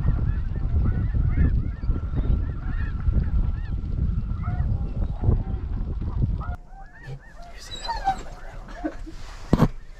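Snow geese calling: a constant chorus of short, high honks. Heavy wind buffets the microphone until about two-thirds through, when the wind noise drops away and the calls go on more faintly. A couple of sharp knocks come near the end.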